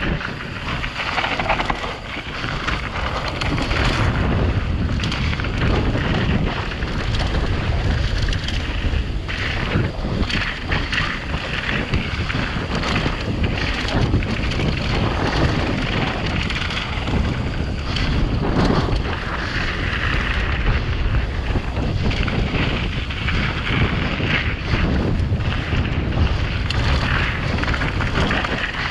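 Giant Reign 27.5" full-suspension mountain bike descending fast on loose hard-pack: steady wind rushing over a helmet-mounted GoPro, tyres crunching over loose dirt and gravel, and the bike rattling and knocking over rocks and roots.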